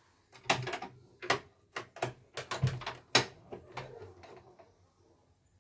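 Irregular sharp clicks and knocks of a screwdriver being handled and set to the screws on the casing of a portable embroidery machine.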